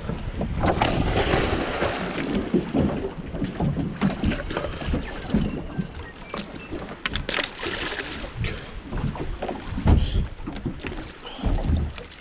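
Water sloshing and slapping against a small boat's fibreglass hull, with wind on the microphone and scattered knocks and clatter.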